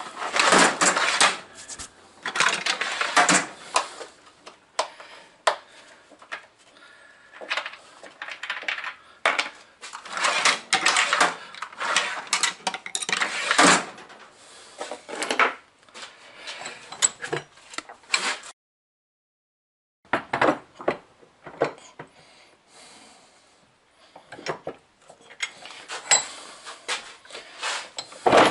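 Rummaging through loose metal hardware, nuts and bolts, in bursts of clinking and rattling, broken by a brief dead silence a little past the middle.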